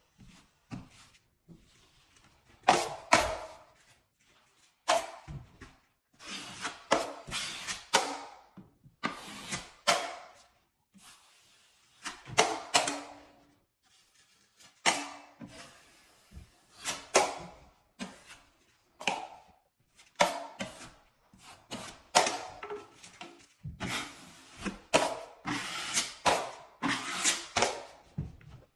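Steel drywall knife scraping across a wall, spreading and smoothing joint compound over a patch in many quick, separate strokes.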